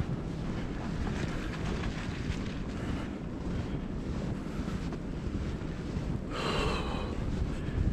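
Wind buffeting the microphone in a snowstorm, a steady low rumble. A short pitched sound with several tones rises above it for about a second, some six seconds in.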